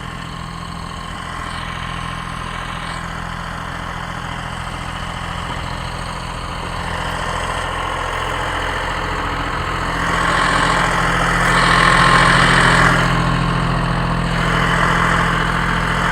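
A vehicle engine running steadily at low revs, a low even-pitched hum. It grows louder with a rushing noise about ten to thirteen seconds in, and again briefly near the end.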